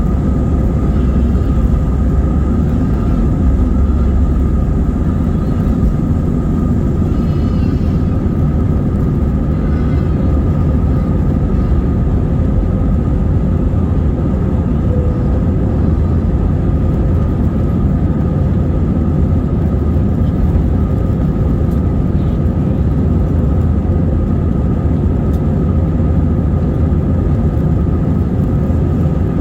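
Airliner cabin noise: a steady low rumble of engines and rushing air with a faint steady whine over it, unchanging throughout.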